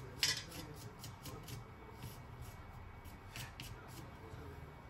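Faint handling sounds from a small brush and tools on a silicone work mat: a few short scrapes and taps, the loudest about a quarter second in, over a low steady hum.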